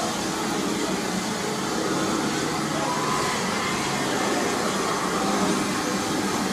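Steam locomotive No. 1638 standing with a steady hiss of escaping steam from low down around its wheels and cylinders.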